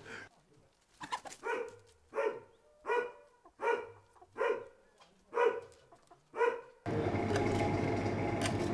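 A dog barking, about eight barks in an even run, each short and pitched. Near the end a steady background hum starts abruptly.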